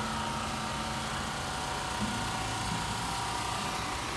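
Engine idling steadily, a low even hum with a faint steady whine above it.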